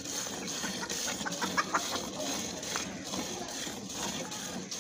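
Cow being milked by hand: jets of milk squirting in a steady rhythm into a steel bucket. A few short chicken clucks come in about one and a half seconds in.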